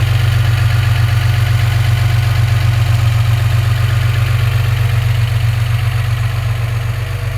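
Chevrolet Opala's 4.1-litre gasoline straight-six, fitted with 6-into-2 headers, idling steadily on its first start of the day. It runs smoothly and evenly, the sign of a well-tuned, well-adjusted engine.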